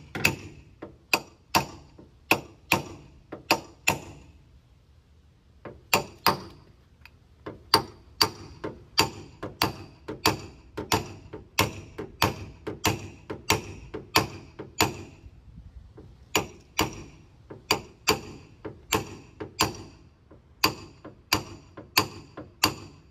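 A paintless dent repair slapper tapper striking the steel rear body panel of a 1969 Cadillac Coupe de Ville in runs of sharp metallic taps, about two a second, each with a short ring. Twice the taps pause for a second or so. The tool is knocking the metal down while the dent is read in the panel's reflection.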